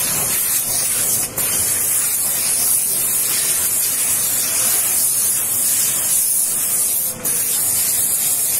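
Scarpavapor steam sanitizing machine's hand-held nozzle hissing steadily as it blows steam onto and into a leather motorcycle jacket. The hiss breaks off briefly twice, about a second in and about seven seconds in.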